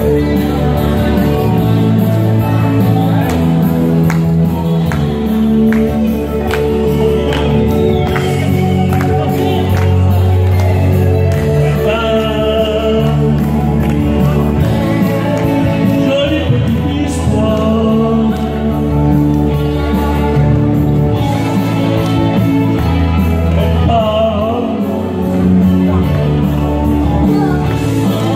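A group singing along into microphones over loud recorded backing music, karaoke-style, with a steady bass line under the voices.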